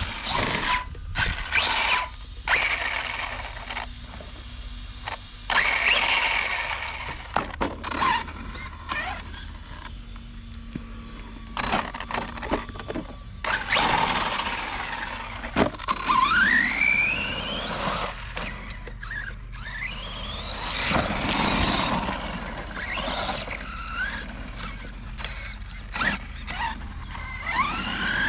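Electric RC trophy truck's motor and drivetrain whining, the pitch rising and falling several times as it is throttled up, with short crunches and clicks of dirt and gravel in between.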